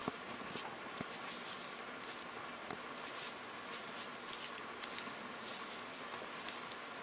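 Faint swishes and scratches of a Chinese ink brush stroked across absorbent painting paper, over a steady hiss.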